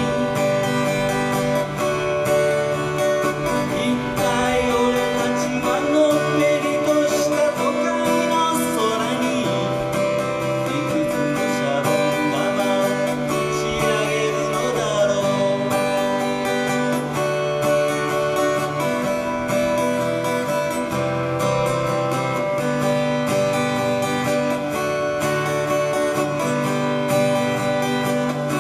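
Acoustic guitar strummed in a continuous song accompaniment, the chords changing every second or two.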